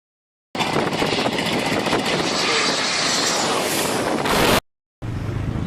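Loud, steady rushing noise with no clear pitch, starting abruptly after a moment of silence and cutting off suddenly about four seconds later; a different, lower rumbling noise starts just before the end.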